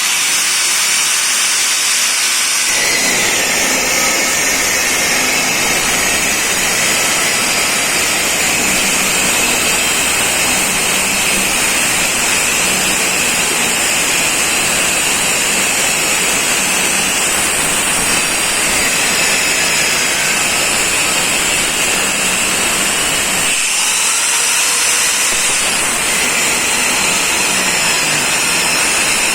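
FISCH TG 8100CE 4-inch angle grinder running at maximum speed with a high whine. About three seconds in, its cutting disc bites into the workpiece and adds a coarse cutting noise. About six seconds before the end it comes out of the cut and spins free again.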